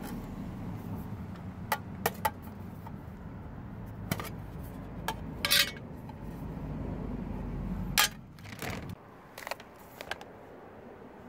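Aluminium mess tin clinking and rattling as it is handled: a series of sharp metal clicks and a few short rattles, the loudest about eight seconds in, over a low steady rumble that fades out near the end.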